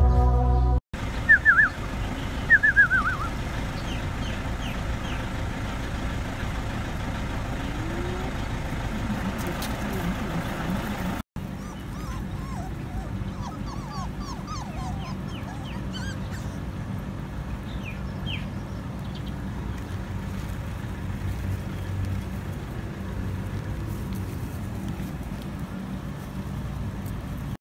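Puppies yipping and whimpering in short, high, falling squeaks over a steady low background rumble.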